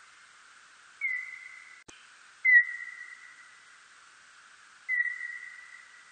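Birdlike noctule bat calls: three short whistled notes, each dropping quickly in pitch and then held steady as it fades over about a second, over a steady hiss.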